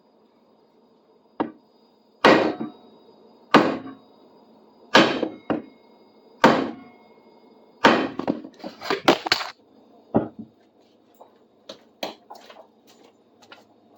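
Hammer blows on a tool driven into hardwood, cutting a handle's socket hole. Single strikes come about every second and a half, then a quicker flurry of blows, tapering off to lighter taps.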